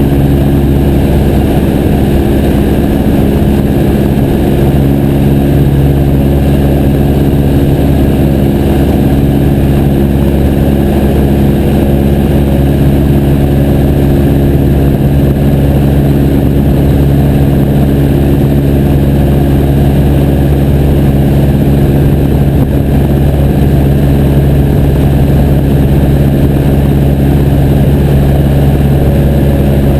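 Piper J3 Cub's piston engine and propeller running loud and steady at constant power, with no change in speed.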